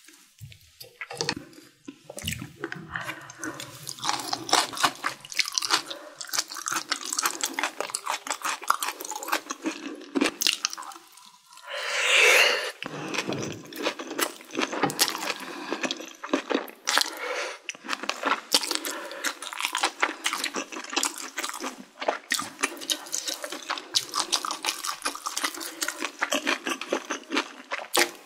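Close-up eating sounds: crunching and wet chewing of spicy stir-fried mala xiang guo with lotus root slices, full of small mouth clicks and smacks. About twelve seconds in there is one louder sound lasting about a second.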